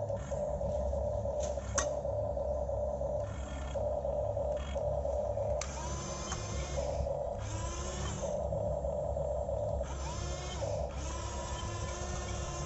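Small electric gear motors of a Huina 1550 RC excavator whining in on-off bursts as its functions are worked, over a low rumble, with a couple of sharp clicks and the whine's pitch rising and falling in the second half.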